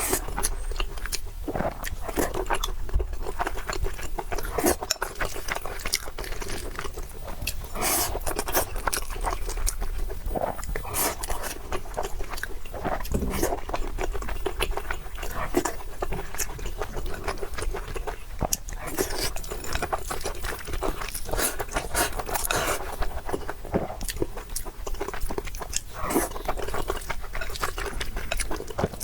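Close-miked sounds of a person eating: continuous chewing and biting, with many small sharp clicks from the mouth and food.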